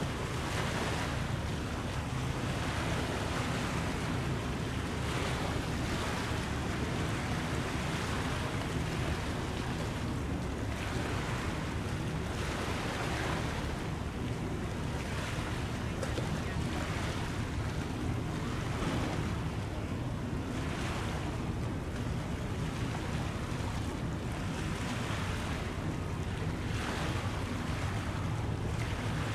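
Small waves washing in about every two seconds, with wind on the microphone and a steady low hum underneath.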